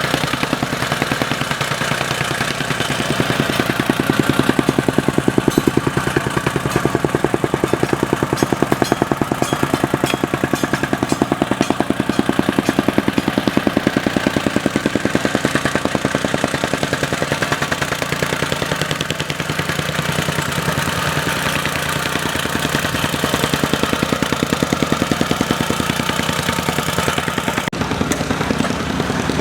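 A construction machine's engine running steadily with a rapid pulsing beat; the sound changes abruptly near the end.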